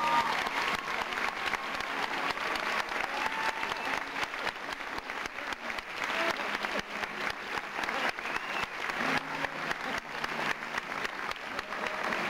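Audience applauding: steady, dense clapping from a hall full of people.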